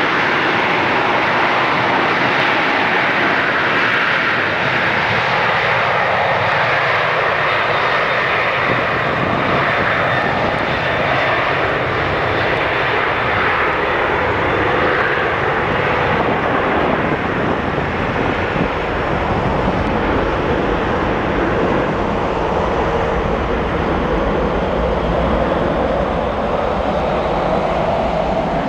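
Boeing 737-800's CFM56-7B jet engines at take-off power: a steady, loud rush of jet noise, with a deeper rumble building near the end.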